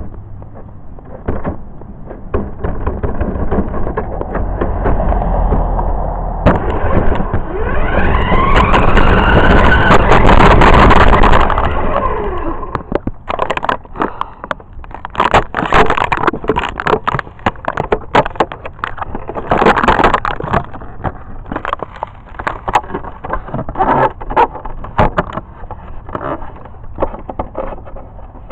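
Radio-controlled car's motor and drivetrain heard from a camera riding on it: a loud whir swells with gliding pitch, peaks about ten seconds in and drops off sharply. Then a long run of irregular clicks and rattles follows as it bumps over concrete.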